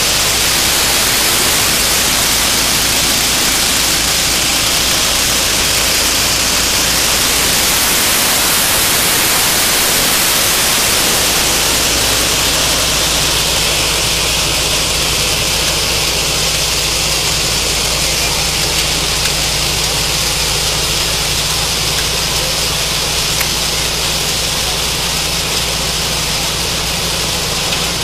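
Mini combine harvester running steadily as it cuts and threshes wheat: a steady engine drone under a loud, even hiss.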